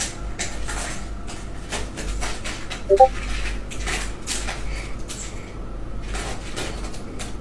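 Laptop keyboard clacking in irregular bursts of clicks, a few per second, over a low hum. A brief pitched blip about three seconds in is the loudest moment.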